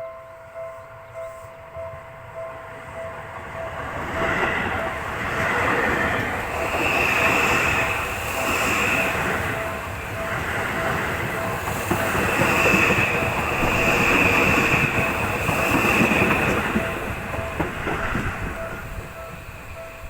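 A Japanese level-crossing warning bell rings in a steady repeated ding. About four seconds in, an electric commuter train starts passing, loud for some fifteen seconds, with a high whine coming and going, and it has gone by near the end.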